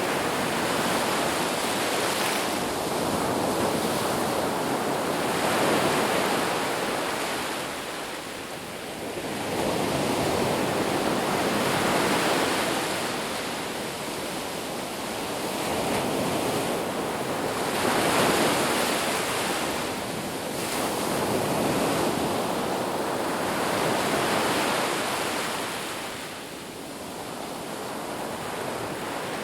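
Sea waves breaking on a shore, the surf rising and falling in repeated swells every few seconds with a constant wash of water in between.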